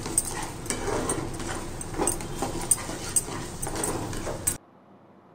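Metal spatula scraping and clinking against a kadai as thick masala paste is stirred and fried down in oil, with several sharp clinks at irregular intervals. The stirring stops abruptly about four and a half seconds in, leaving only a faint steady background noise.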